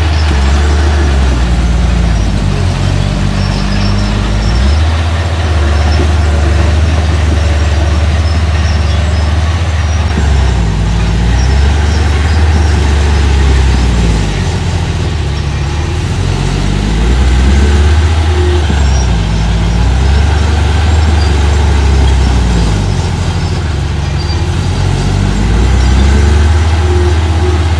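Diesel engine of a small construction machine running hard, its pitch dropping and climbing again several times as the load and throttle change.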